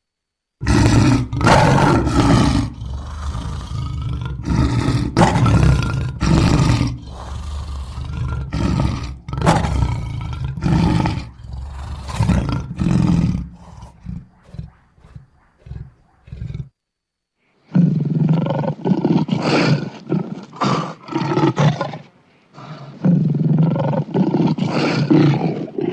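Lion roaring: a bout of long, loud roars that taper into a run of shorter grunts. After a brief silence about 17 seconds in, a second series of roars and growls begins.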